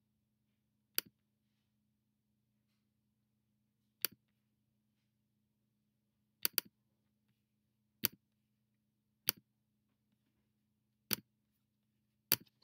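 Computer mouse button clicking: seven sharp single clicks spaced one to three seconds apart, two of them quick double clicks, placing the points of a polyline shape. A faint steady low hum lies beneath.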